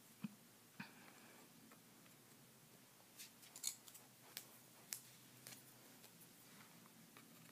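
Near silence: room tone with a few faint, scattered small clicks and taps, the strongest about halfway through.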